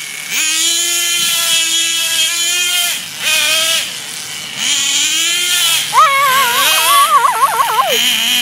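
A young child's voice making long drawn-out vocal sounds, three held notes of two to three seconds each. The last note breaks into a fast wavering warble near the end.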